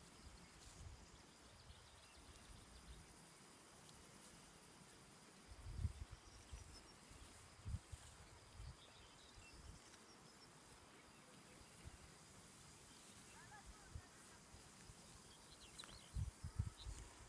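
Very faint rural meadow ambience: a steady high insect hum with a few short bird chirps, broken by several low thumps on the microphone about a third of the way in and near the end.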